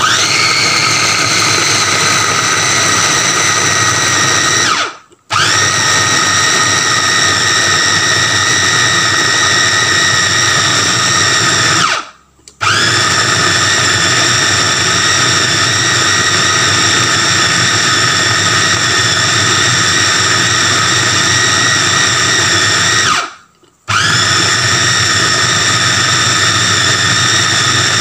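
Electric mini food chopper grinding chicken and garlic, its motor running with a loud high whine. It stops briefly three times, about five, twelve and twenty-three seconds in, and spins back up each time.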